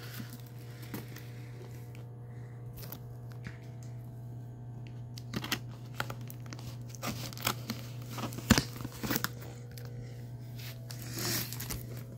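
Fingers picking, scraping and tearing at a cardboard shipping box: scattered scratches and small rips, busier from about halfway on. A steady low hum runs underneath.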